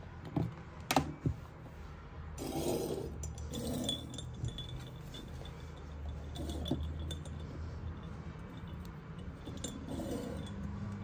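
Light clinks and knocks of hard household items, such as glassware or dishes, being handled during cleaning. A few sharp clicks come in the first second or so, with scattered softer ticks and rustles after, over a steady low hum.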